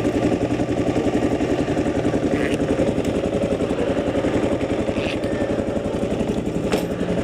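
Kawasaki KLR motorcycle's single-cylinder engine running steadily with an even, fast pulse.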